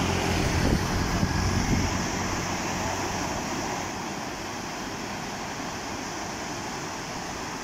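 Steady rush of turbulent floodwater pouring out below the Chao Phraya Dam's sluice gates, which are releasing a large flow. Wind buffets the microphone with a low rumble in the first couple of seconds.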